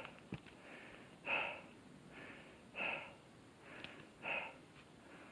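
A hiker breathing heavily, three deep breaths about a second and a half apart, winded from the steep mountain climb.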